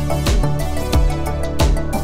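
Background music with a steady beat: a low drum about every third of a second under sustained notes.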